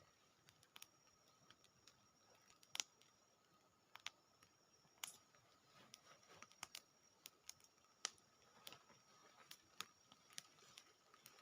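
Near silence broken by scattered, irregular soft clicks and ticks, one slightly louder a little under three seconds in, over a faint steady high hum.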